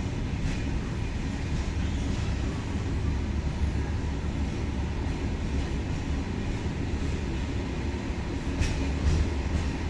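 InterCity train running with a steady low rumble, with a couple of faint clicks near the end.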